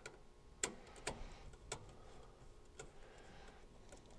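A screwdriver working the low-voltage screw terminals on a gas furnace's control board while wires are fed in: about four light, sharp clicks, irregularly spaced, the first the loudest.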